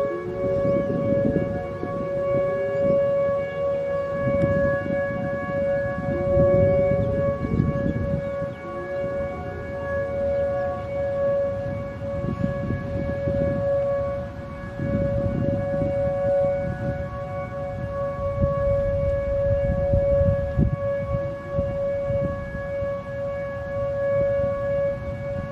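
Federal Signal Modulator 4016 electronic siren sounding its steady Alert, a dual-tone wail held on one pitch, with fainter rising tones underneath in the first few seconds and again later.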